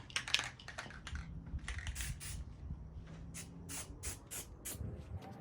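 Aerosol can of black spray paint in use: a couple of short hissing sprays in the first half, then a quick run of sharp rattling clicks, about five a second.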